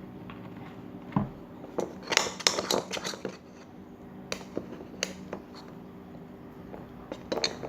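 Glue-and-activator slime being stirred in a bowl as it thickens: a quick run of sticky clicks and scrapes about two seconds in, then a few single clicks.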